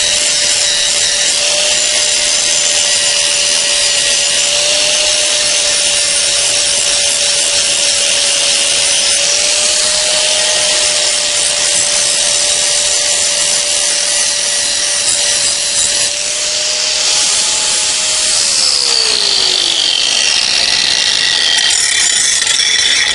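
Handheld angle grinder running with a steady whine while grinding the edge of a steel lawn mower blade to sharpen it, a loud harsh rasp of the disc on metal. About 18 seconds in, the motor's whine drops in pitch, and the grinding stops abruptly at the end.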